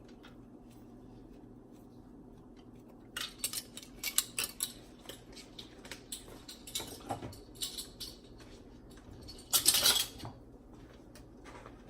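Metal spoon and seasoning containers clicking, tapping and scraping as spices are measured into a pot, a scattered series of light clinks starting about three seconds in, with a louder scrape near the end, over a faint steady hum.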